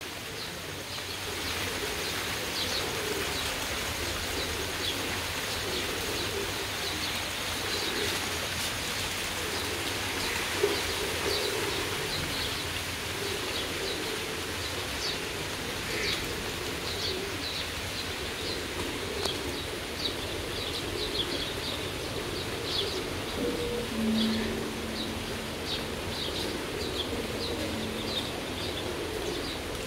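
Domestic pigeons cooing in a wire-mesh loft during steady rain, with frequent short high chirps over the rain. A steady low hum sounds for a few seconds near the end.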